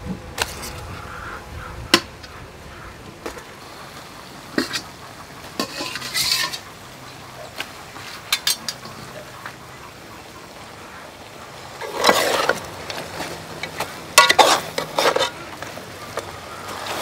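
Metal spoon stirring braised pork head and intestines in a metal pot: scattered clinks of the spoon against the pot and a few short scraping bursts, the loudest two in the last third.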